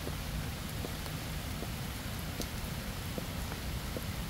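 Steady rain, an even hiss with distinct single drops ticking through it every second or so.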